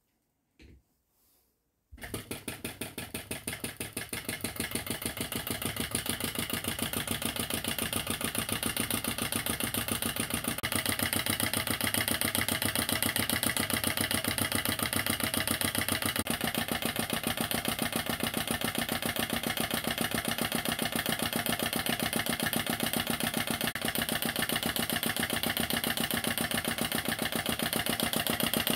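Model flame licker (vacuum) engine running: a fast, even run of clicks from its valve and piston, one set per turn of the flywheel. It starts about two seconds in and grows louder as it gathers speed over the next ten seconds or so, then runs steadily.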